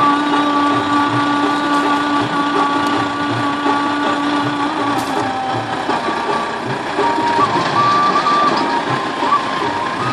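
Music: a held, stepping melody line over a low, steady beat.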